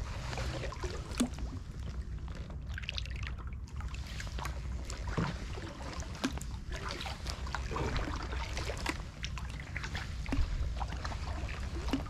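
Canoe paddle strokes in calm floodwater: the blade dipping and pulling, with small splashes and drips.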